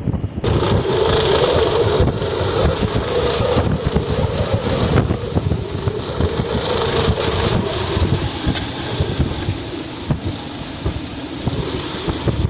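Hurricane Helene's inner-eyewall winds gusting hard and buffeting the microphone, with a wavering low howl that fades after about eight seconds. The wind is turbulent, gusting in pulses, at the edge of a major hurricane's inner eyewall.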